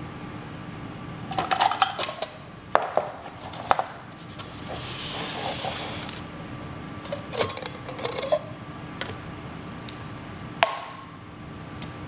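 A metal can knocked and clinked against a table and a plate, with water poured out of it onto a foam plate for about a second and a half midway, then a few more knocks and one sharp ringing clink near the end.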